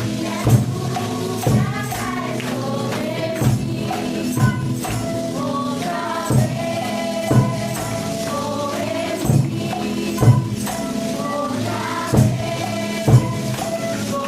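Music: voices singing over percussion, with sharp hits in pairs every couple of seconds.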